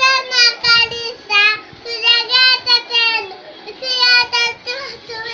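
A young girl singing solo, unaccompanied, in a high child's voice, holding notes in short phrases with brief breaths between.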